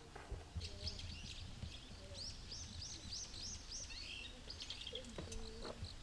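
Small songbirds chirping, with a run of about six quick, evenly repeated high notes in the middle, over a low outdoor background rumble.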